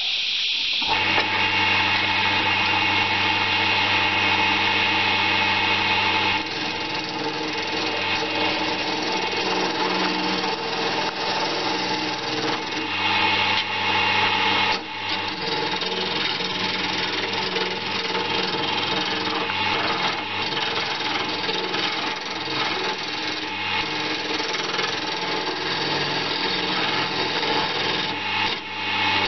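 Wood lathe motor starting up about a second in and running steadily, with a flat chisel scraping against a hard, rough Banksia seed pod as it turns.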